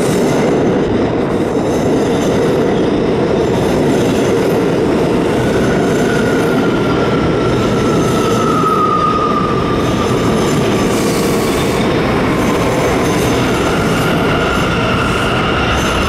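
New York City Subway R179 train pulling into a station and slowing to a stop: a steady rumble of wheels on rails. A high squeal falls in pitch about halfway through, and more high tones come in near the end as it comes to rest.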